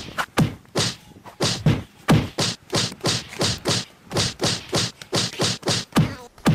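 A fast, regular run of punchy percussive hits, each dropping steeply in pitch to a low thump, about three a second.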